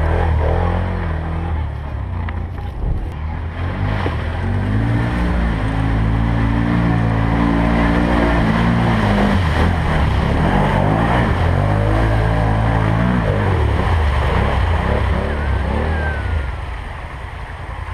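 4x4 ATV engine running and revving, its pitch climbing and holding for several seconds, dropping back, then climbing again before settling.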